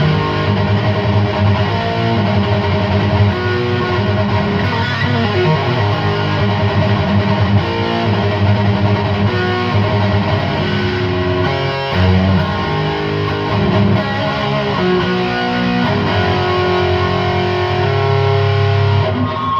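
Distorted electric guitar played through a Chupacabra 100 amplifier at high gain: sustained chords and riffs ringing out loudly without a break.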